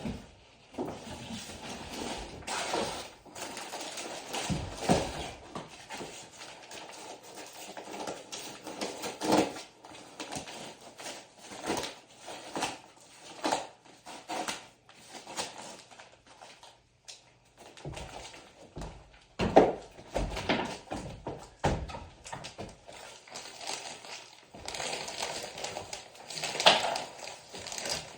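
Hands-on renovation work on an old wall: irregular knocks and scraping, with rustling between them, the loudest knock about two-thirds of the way through.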